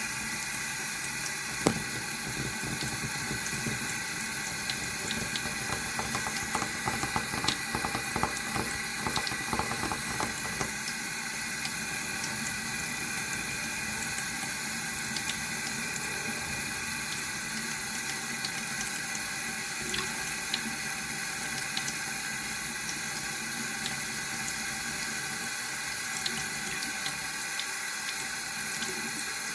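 Water running steadily from a tap into a sink. A sharp click comes near two seconds in, and a run of small clicks and knocks follows between about five and eleven seconds in.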